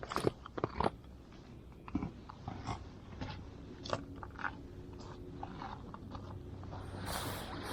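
Irregular crunches and scrapes, growing denser and louder near the end.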